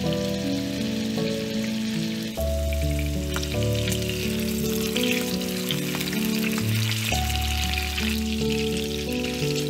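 Salmon fillets sizzling in hot oil in a frying pan, with a few light clicks as they are turned over with tongs. Soft instrumental music plays underneath.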